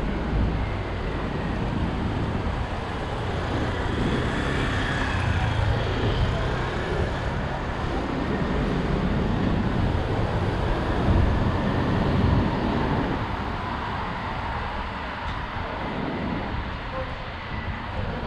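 Steady town-centre traffic noise with vehicles passing, heard from a moving bicycle.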